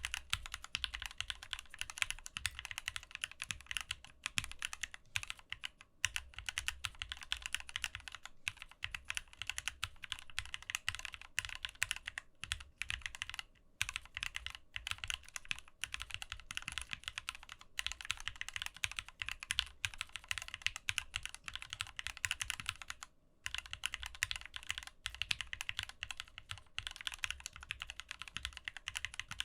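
Continuous fast typing on a Keychron Q4, a 60% aluminium-cased mechanical keyboard: a dense stream of keystroke clacks, with a few brief pauses.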